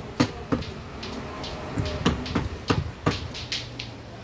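Hand-held turbocharger parts clicking and knocking against each other: about nine sharp, separate clicks and taps spread over a few seconds.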